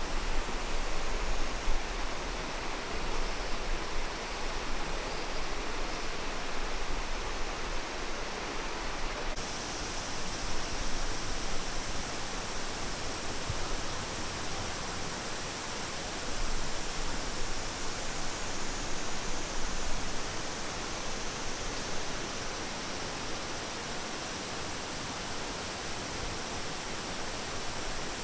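Steady rush of falling water, an even roar spread across all pitches.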